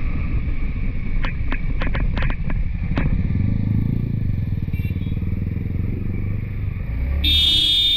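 Motorcycle engine running and road noise while riding. A quick run of sharp clicks comes a second or two in, and a brief high-pitched tone sounds near the end.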